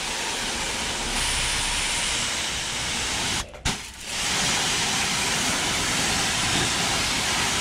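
High-pressure water jet from a Gaocheng GC-RS3 2300 W electric pressure washer spraying a truck's radiator and front end, a steady hiss. About three and a half seconds in the spray cuts out for about half a second with a click, then resumes.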